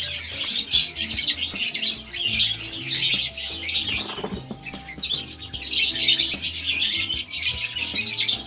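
Young nestling birds chirping rapidly and high-pitched in several long bursts, begging while being hand-fed.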